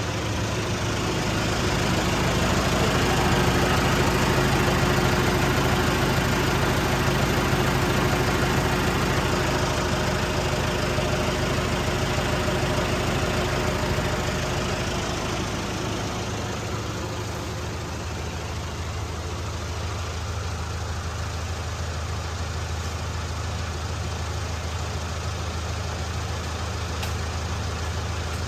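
Wood chipper's engine running steadily while its winch hauls on a rope around a fallen tree. It runs louder, with a higher hum over it, for the first half, then settles to a lower, quieter run about sixteen seconds in.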